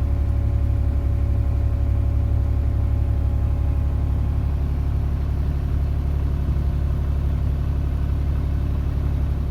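Mini excavator's engine running steadily, a loud, even, low drone that holds the same pitch throughout.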